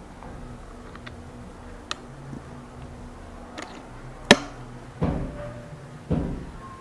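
PCP air rifle: a few light mechanical clicks, then one sharp loud shot about four seconds in, followed by dull thuds with a short ring about once a second.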